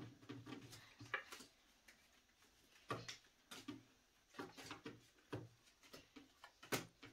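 Faint scattered taps and soft knocks of Uno cards being put down on a hard tabletop, one every second or so, the sharpest near the end.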